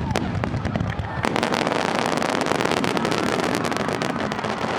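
Aerial fireworks bursting: a few sharp bangs at first, then from about a second in a dense, continuous crackle of many small reports.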